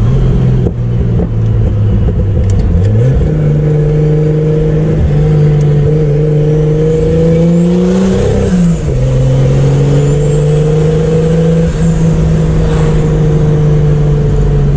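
Turbocharged Chevrolet Opala inline-six engine pulling under load while driving. Its note climbs steadily, then drops suddenly about nine seconds in at a gear change and settles at a steady pitch, with a faint high whistle rising over it.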